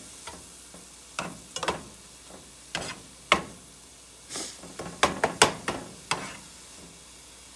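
Spinach being stirred in a pan, heard as scattered scrapes and clicks of the spoon against the pan over a low hiss of frying, with a cluster of strokes about five seconds in.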